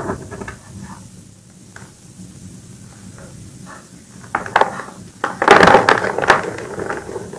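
A soft reformed gym chalk disc being pressed and snapped by hand: light crumbling at first, then sharp cracks about four seconds in and a loud dense crunch between five and six and a half seconds as the disc breaks apart, then softer powdery crumbling.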